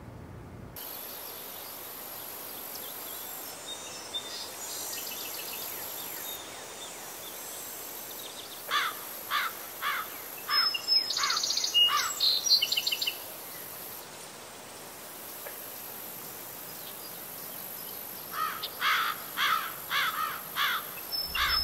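Outdoor ambience: a steady high hiss of insects under two runs of quick, falling bird chirps, about two a second, around the middle and again near the end.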